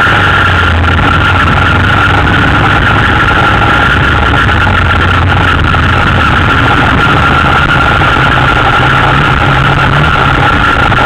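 Yamaha Raptor 250 quad's single-cylinder four-stroke engine running steadily and loudly while the quad is ridden, picked up close by a camera mounted on its frame.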